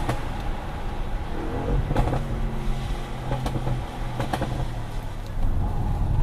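Audi RS6 C7 Performance's 4.0-litre twin-turbo V8 running under way, its engine note holding steady through the middle and easing near the end. A few sharp exhaust cracks come through, about two seconds in and again around three and a half to four seconds.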